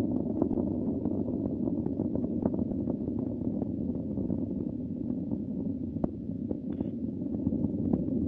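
Soyuz-2.1a rocket's first-stage and strap-on booster engines (RD-107A/RD-108A, kerosene and liquid oxygen) heard from the ground during ascent: a steady low rumble with scattered crackling pops.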